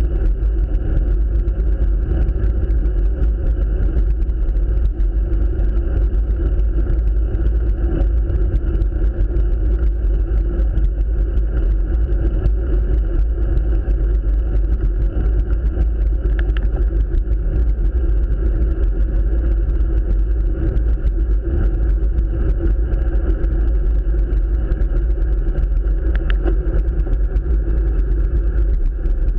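Steady wind rush and road rumble picked up by an action camera mounted on a road bike's handlebars while riding, with a couple of faint ticks in the second half.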